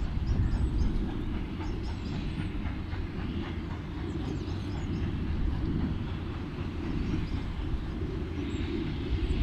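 GWR King class four-cylinder 4-6-0 steam locomotive 6023 King Edward II working under steam, a steady heavy low rumble.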